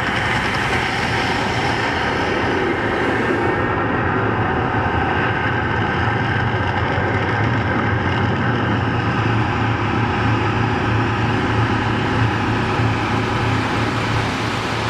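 The Mirage volcano show's eruption sound effects: a loud, steady, deep rumble with a hissing noise above it, no breaks.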